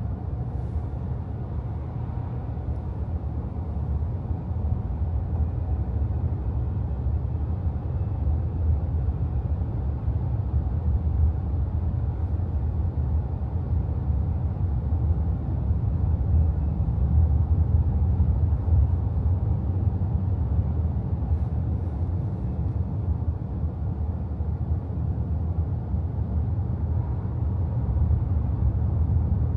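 Car driving through a road tunnel: a steady low rumble of engine and tyre noise.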